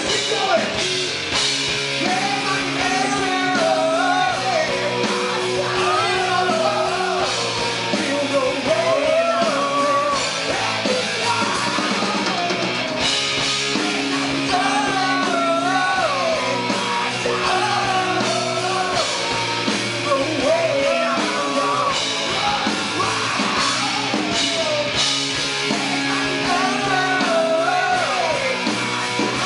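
Rock band playing live: a male singer's wavering vocal over electric guitars, bass and a drum kit with steady cymbals.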